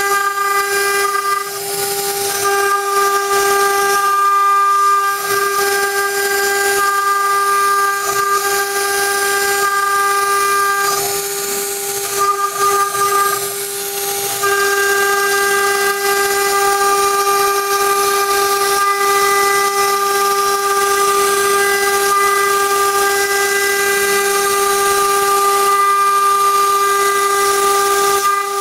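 CNC router spindle whining at a steady high pitch, with the hiss of the bit cutting a 2D pattern into a board. About midway the whine falters and breaks up for a few seconds, then steadies again.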